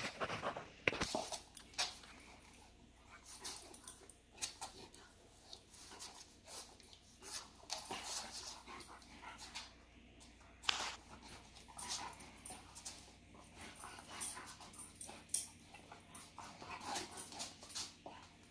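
A German Shepherd and a kitten play-fighting on a hardwood floor: scattered, irregular taps and scuffles of paws and claws on the boards, with soft sounds from the dog.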